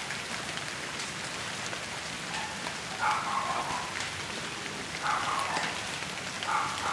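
Steady patter like rain falling, with faint scattered ticks. Three short, faint calls sound over it about three, five and six and a half seconds in.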